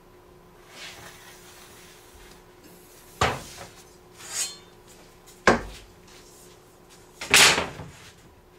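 A long metal straightedge handled on a plywood sheet: two sharp knocks a couple of seconds apart as it is set down against the wood, a short scrape between them, and a louder, longer sliding clatter near the end.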